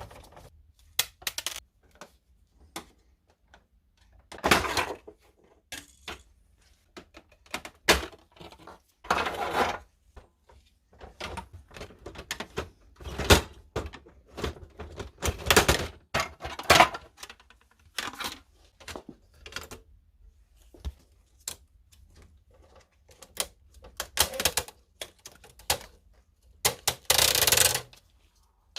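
Plastic and metal parts of an old Canon printer clicking, knocking and clattering as it is taken apart by hand, with a few longer scraping noises, the longest near the end.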